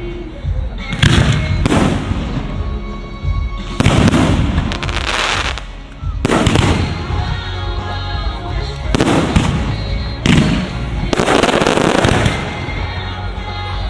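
Aerial firework shells bursting one after another, about nine loud bangs spaced a second or two apart, each trailing off in a rolling echo, with music playing underneath.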